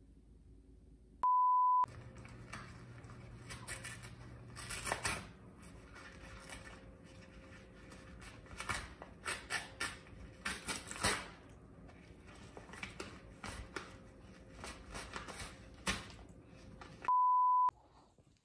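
Two short, steady, high beeps, one about a second in and one near the end, the loudest sounds. Between them a corgi tears and crinkles a brown paper shopping bag: irregular rustling and ripping paper.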